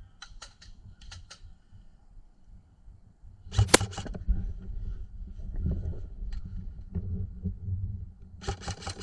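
Airsoft gun shots: a few sharp clicks in the first second and a half, a short burst about three and a half seconds in, and another burst near the end, over a low rumble.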